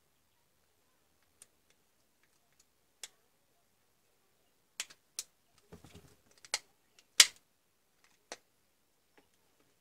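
Sharp plastic clicks and snaps from the housing of a Dremel 3000 rotary tool being worked open by hand, about eight clicks spread irregularly, the loudest a little past the middle, with a short spell of rubbing and scraping between them.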